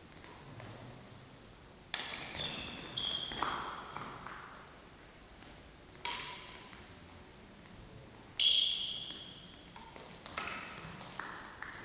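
Badminton rally in a sports hall: a string of sharp racket-on-shuttlecock hits, each echoing off the hall, the loudest about eight seconds in. Some hits are followed by a brief ringing tone.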